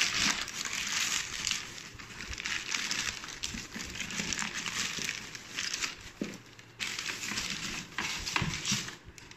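Packaging crinkling and rustling as it is handled, in a run of crackly rustles that dies away near the end.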